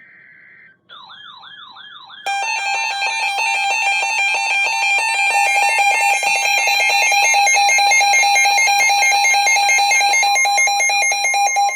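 Emergency Alert System tones. First a short buzzy data burst, then a warbling tone that rises and falls several times a second, then from about two seconds in a loud, harsh, steady two-tone attention signal that lasts about nine seconds and cuts off near the end.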